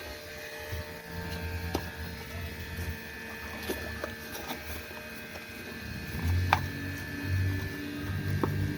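Scattered light clicks and taps of the new oil filter and its plastic housing being handled, over a steady low hum.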